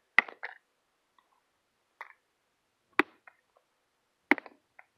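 Claw hammer striking a Samsung smartphone on hard dirt, smashing it: sharp cracking blows, three loud ones and one lighter one about two seconds in, a second or more apart.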